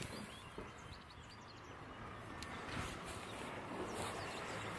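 Outdoor ambience with faint, scattered bird chirps and a low background rumble.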